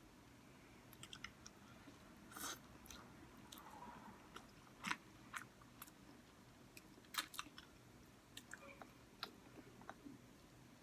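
Faint mouth sounds of someone chewing spicy noodles, with scattered short, sharp clicks and smacks.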